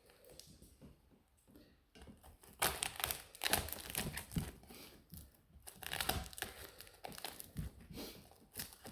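Thick packing tape and plastic wrapping being torn and pulled off a boxed hitch: irregular crinkling and tearing that starts about two and a half seconds in.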